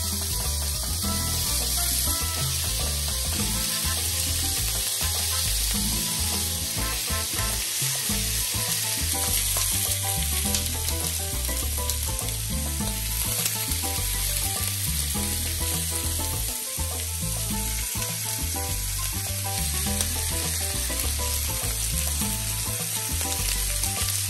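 Bacon strips frying on a ridged grill pan over high heat, with halved garlic cloves, giving a steady sizzle throughout, with background music underneath.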